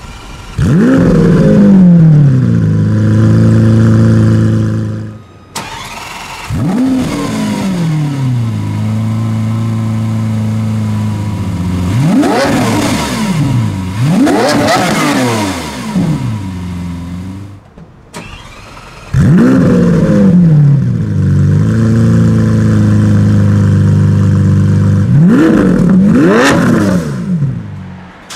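Lamborghini Aventador's naturally aspirated V12 started three times, about a second in, about six seconds in and about nineteen seconds in: each start flares loudly, the pitch drops fast, and the engine settles into a steady idle. Between the starts the throttle is blipped twice in quick succession, twice over, the revs rising sharply and falling back.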